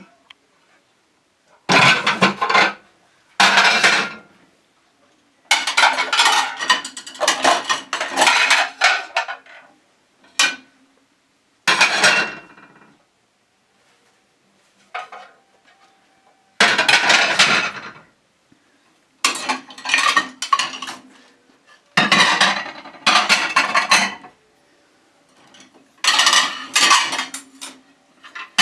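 Dishes and cutlery clattering and clinking as they are handled, in about ten separate bursts of a second or two with short quiet gaps between.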